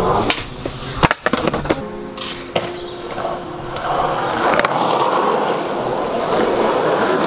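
Skateboard wheels rolling on a concrete path, with a few sharp knocks in the first few seconds, then a steady rolling rumble that grows louder from about four seconds in as the board comes closer.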